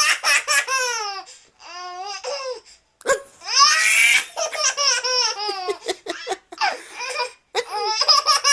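A baby laughing in repeated high-pitched bursts, with a louder, breathier burst about three and a half seconds in.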